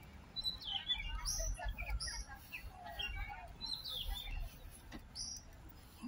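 Small birds chirping, many short high calls in quick succession and overlapping, over a low rumble.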